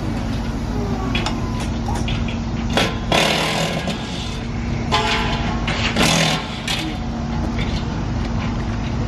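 A small engine running steadily with a low hum, broken by four short, loud bursts of noise about three, five and six seconds in.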